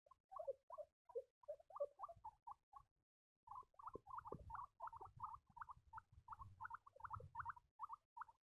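Baby guinea pigs squeaking: a run of short high peeps, several a second, with a half-second break about three seconds in, after which the peeps come more evenly.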